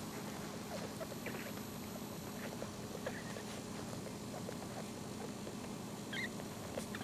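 One-week-old Maltese puppies nursing: faint clicks and shuffling as they suckle, with a few brief high squeaks, the clearest near the end.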